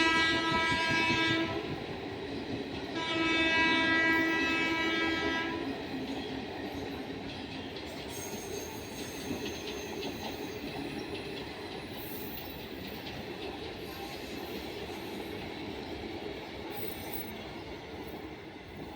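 Indian Railways locomotive horn sounding two long blasts, the second starting about three seconds in, then the steady rumble and wheel clatter of the passing train, slowly fading away.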